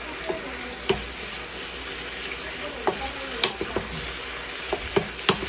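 Chicken pieces sizzling as they brown in a frying pan, stirred with a wooden spatula that knocks and scrapes against the pan at irregular moments, several in quick succession around the middle.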